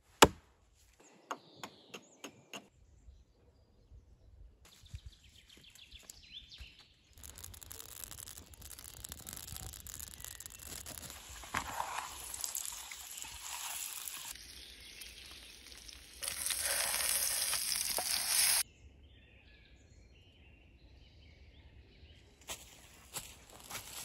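A series of short clips: an axe biting sharply into a log, followed by a few separate knocks. Then a long steady sizzle of potato wedges frying in oil in a pan, which swells louder for about two seconds. Near the end come faint bird chirps.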